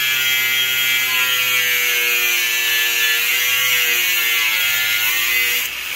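Electric angle grinder with a cutting disc cutting through steel angle bar: a steady whine over a harsh grinding hiss. The pitch sags and recovers slightly as the disc bites, and it dips briefly near the end.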